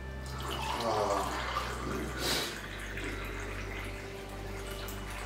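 Water poured from a stainless steel saucepan into a ceramic mug, a steady pouring stream.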